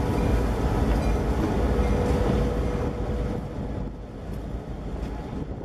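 New England Central diesel locomotives passing close by, engines running with a low rumble that fades from about three seconds in as they go by.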